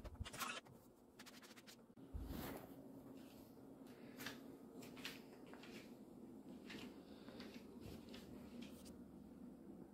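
Faint handling noises: scattered light clicks and rustles, with a soft thump about two seconds in.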